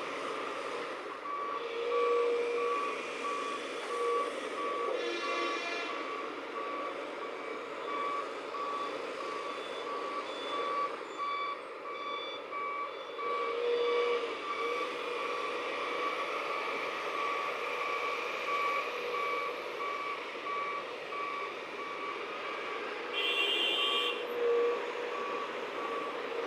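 A heavy construction vehicle's reversing alarm beeping, one steady tone repeating evenly, over the noise of running machinery. A short hiss comes near the end.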